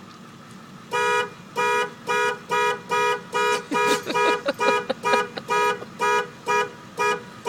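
Diesel truck's horn honked over and over in short, quick blasts, about two a second, starting about a second in, as a small child taps it repeatedly.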